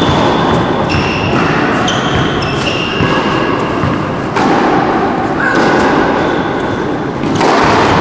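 Tennis ball bounced on an indoor court several times, about a second apart, then hit with the racket in a serve near the end; each impact rings on in the large hall.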